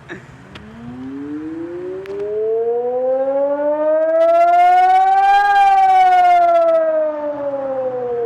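MoLaRi electronic civil-defence warning siren sounding the reduced-operation test signal: a single tone that rises slowly for about five seconds, peaks, and falls away again, loudest at the peak.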